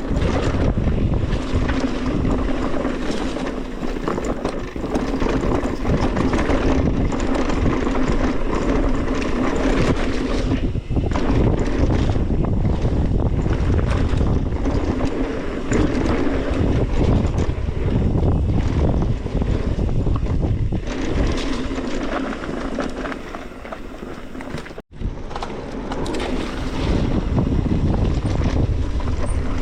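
Wind buffeting an action camera's microphone over the rushing of mountain-bike tyres on a dirt trail and the rattle of the bike on a fast downhill run. There is a steady buzz that fades in the middle stretch and returns, and a brief dropout about 25 seconds in.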